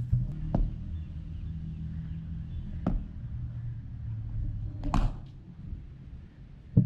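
Four sharp knocks spaced about two seconds apart over a low steady rumble.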